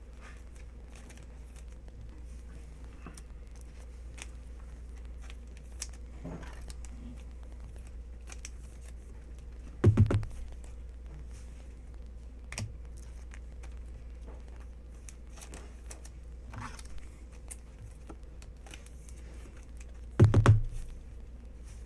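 Hands handling trading cards and a rigid plastic top loader, with faint clicks and rustles of card and plastic over a steady low hum. Two loud dull thumps, one about halfway through and one near the end.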